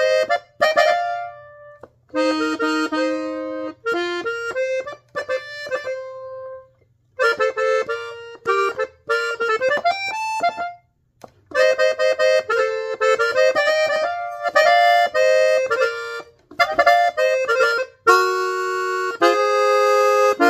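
Hohner diatonic button accordion in F played in B-flat: short melodic phrases and runs on the treble buttons, broken by brief pauses, with a rising run about halfway and held chords near the end.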